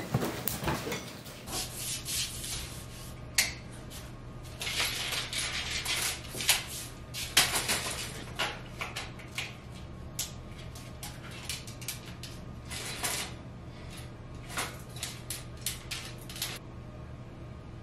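Bedding rustling as covers are thrown off, then a long run of short scrapes, knocks and clicks from a camera being handled and set up on a tripod, over a steady low hum.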